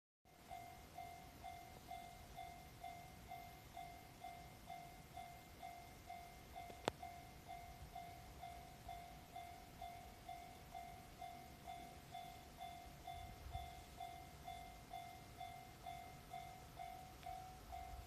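Japanese railway level crossing warning bell ringing, a steady repeated ding about two times a second, the signal that a train is approaching. A single sharp click about seven seconds in.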